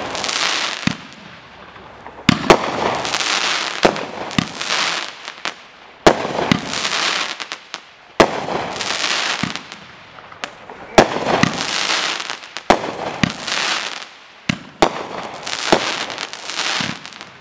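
Aerial fireworks from the Pro Ox Patriot Assortment firing shot after shot, roughly one every two seconds. Each shot is a sharp report followed by a second or so of crackling hiss as the burst spreads.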